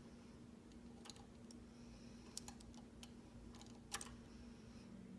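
Faint, scattered light clicks of a metal bobbin case being fitted into the shuttle of an antique Singer Class 15-30 sewing machine, the clearest about four seconds in, over a low steady hum.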